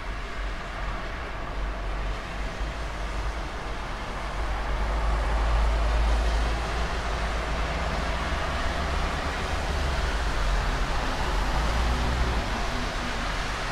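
Steady rain with traffic on a wet road: tyre hiss and low engine rumble swell and fade as vehicles pass, loudest about five seconds in and again near the end.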